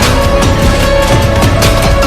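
Loud background music with a steady beat and sustained melody notes.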